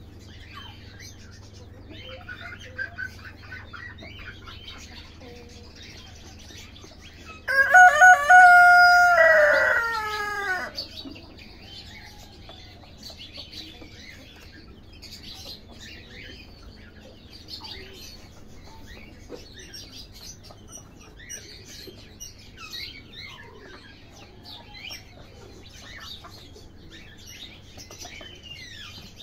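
A rooster crows once, loudly, about a quarter of the way in: a long call of about three seconds that drops in pitch at the end. Around it are faint chicken clucks and bird chirps.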